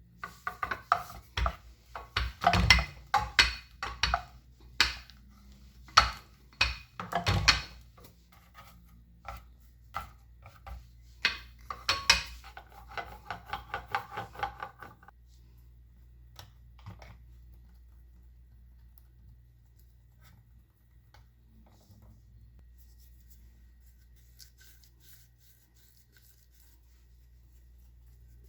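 Rolling pin rolling out pastry dough, with repeated knocks and rubbing, along with kitchenware clatter. It stops about halfway through, leaving only a few faint handling sounds over a low steady hum.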